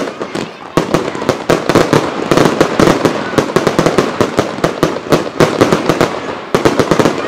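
Aerial fireworks bursting in a rapid barrage, the closing volley of a fireworks display. The bangs come a few at a time at first, then pile up densely from about a second in.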